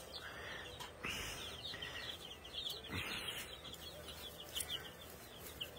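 A mixed flock of three-week-old chicks peeping: many short, high cheeps overlapping throughout, with a few soft rustles.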